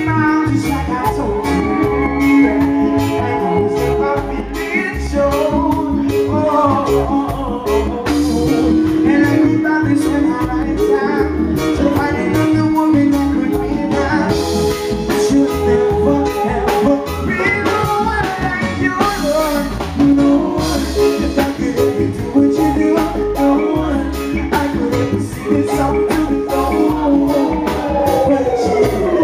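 Live band playing: a male vocalist sings through a microphone over electric guitar, keyboard and a drum kit, with a steady beat.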